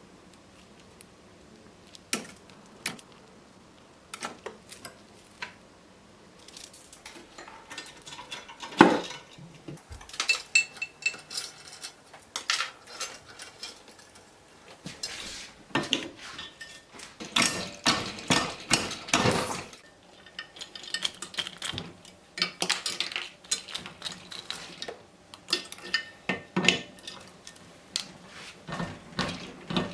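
Sterling silver chain links clinking and jangling as the bracelet is worked and handled. The clicks come in irregular clusters, beginning about two seconds in, with one sharp loud click near nine seconds.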